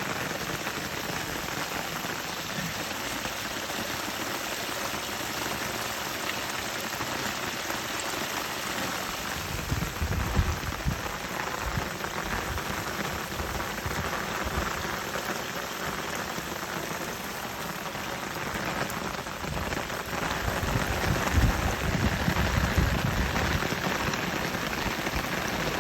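Steady hiss of falling or running water, even throughout, with low rumbling spells about ten seconds in and again from about twenty seconds.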